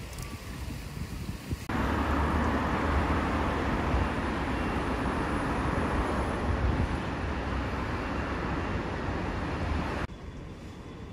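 Steady road traffic noise from cars on a wide multi-lane road, starting abruptly about two seconds in and cutting off sharply near the end, with quieter outdoor background either side.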